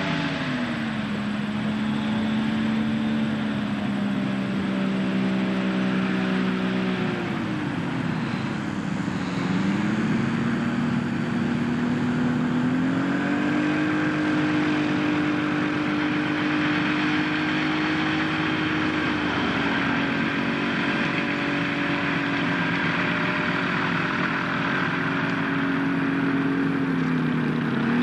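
A RagWing Stork's 2SI AMW 100 hp two-stroke engine and propeller running while the light plane taxis. The engine speed drops about eight seconds in, is opened up to a higher steady speed by about thirteen seconds, and eases back briefly near the end.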